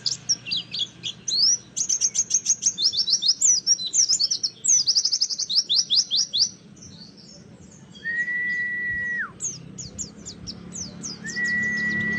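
White-eye (pleci) song: a fast, dense run of high, sharply falling chirps for about six seconds, then, after a short lull, two long steady whistles held at one pitch, each ending with a quick drop.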